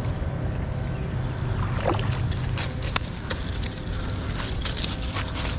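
A hooked smallmouth bass splashing and thrashing in shallow river water as it is fought to the bank, with irregular sharp splashes growing busier from about two seconds in, over a steady low rush. A few high chirps repeat near the start.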